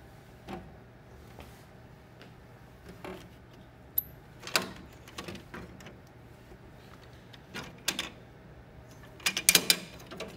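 Plastic clicks and clacks of an HP Designjet T790's printhead carriage being handled: the carriage's latch cover is unlocked and a printhead is pulled out by its blue handle, with a quick cluster of the loudest clacks near the end. A low steady hum runs underneath.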